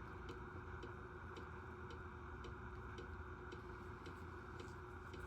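Faint, evenly spaced ticking, about two ticks a second, like a clock, over a steady low room hum.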